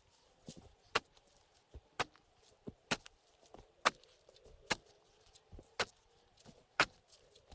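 Axe chopping wood: sharp strikes about once a second, with softer knocks between them.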